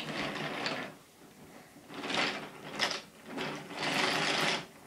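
Toy train running along the track with a mechanical rattling whir, in three spells of about a second each.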